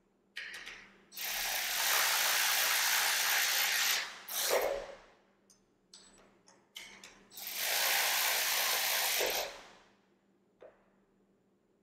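Milwaukee M12 Fuel 3/8-inch cordless electric ratchet running in two long runs of two to three seconds each, with a short burst and a few clicks in between. It is driving down the small bolts that hold the coil-on-plug ignition coils, snugged lightly so as not to crack the plastic.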